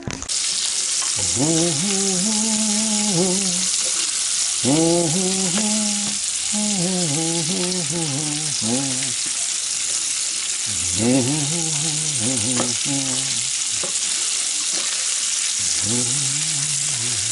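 Peeled shrimp frying in a nonstick pan, a steady loud sizzle, while a plastic spatula stirs and turns them.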